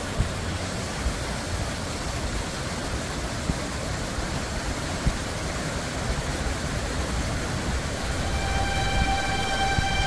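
Steady roar of a rain-swollen mountain stream rushing down its rocky bed. Music fades in near the end.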